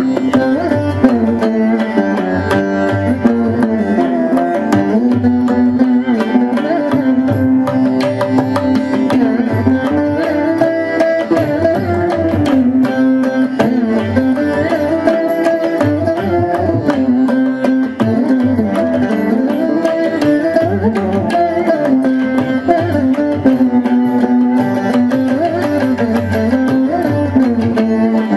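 Carnatic veena music: a plucked melody with sliding, bending notes over steady hand-drum percussion.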